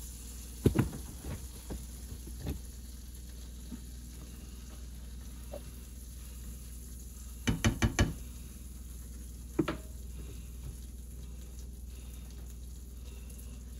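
Butter sizzling faintly as it melts over browned chicken drippings in a nonstick frying pan, loosening them, while a silicone spatula stirs and scrapes. A few light clicks come in the first seconds, then a quick run of about four sharp knocks about eight seconds in and one more knock about two seconds later.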